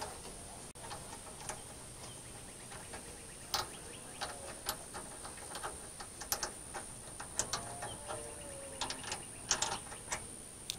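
Faint, irregular metallic clicks and ticks as a wing nut is turned off its threaded stud by hand on a tractor's front grill bracket.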